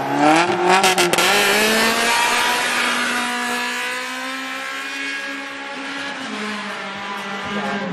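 Hatchback race car accelerating hard from a standing start, its engine revving up as it pulls away and fading as it speeds off down the street, with a few sharp cracks about a second in. Near the end another car's engine is heard idling at a steady pitch.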